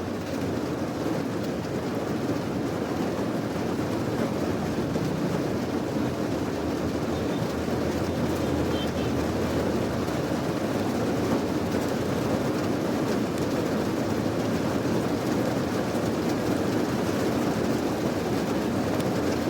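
Steady rain, an even noise with most of its weight in the low and middle range and no single drops or breaks standing out.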